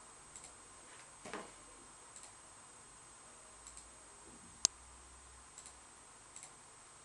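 Faint computer mouse clicks, mostly in quick pairs every second or two, with one sharper single click a little past the middle.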